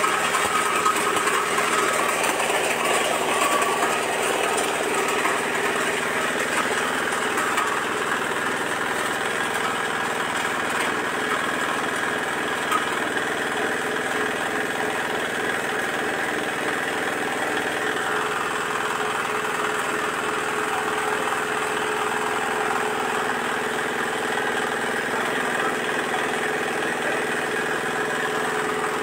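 An areca nut cracking machine driven by an 8 HP single-cylinder diesel engine, running steadily under load, with the crusher rattling as it cracks the nuts.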